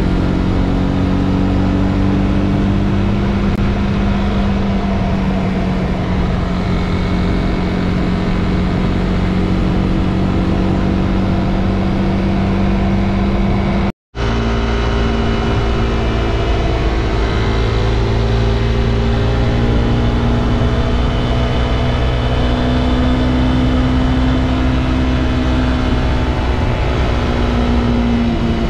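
Honda CB300R's single-cylinder engine running steadily under way, its pitch drifting slowly up and down with the throttle, over steady wind rush. The sound cuts out for a split second about halfway through.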